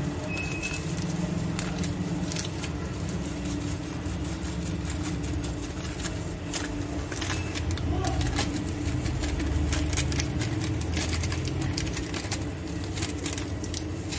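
Foil spice packet crinkling as it is shaken and emptied over a bowl of mince, with many small sharp clicks and crackles, over a steady low hum.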